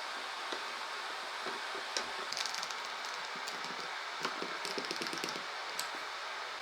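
Shop handwork on the cleaver's wooden handle: two short clusters of light clicking and scratching, with a few single ticks, over a steady background hiss.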